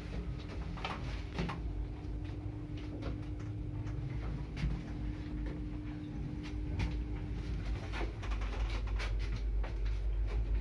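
A 1974 MZS passenger lift (1 m/s, 500 kg) running in its shaft, heard from inside the cab: a steady hum with a low rumble and scattered clicks and knocks. The hum stops about eight seconds in, and the low rumble then grows louder.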